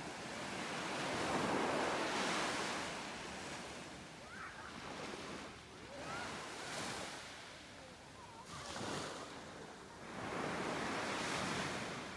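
Small waves breaking and washing up a sandy beach. The surf noise swells and fades several times, loudest about two seconds in.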